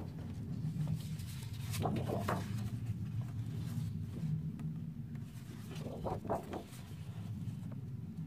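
Sheets of 12-by-12-inch patterned scrapbook paper rustling and flapping as they are handled and turned over one after another, with sharper rustles about two seconds in and again about six seconds in, over a low steady hum.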